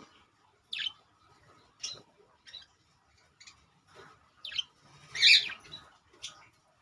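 Budgerigar chirping: about seven short, sharp, high chirps at irregular intervals, the loudest a little past five seconds in.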